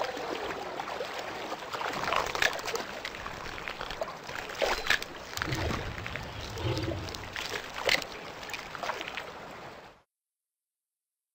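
River water splashing and churning as Nile crocodiles thrash while feeding, with several sharp splashes, cutting off suddenly to silence about ten seconds in.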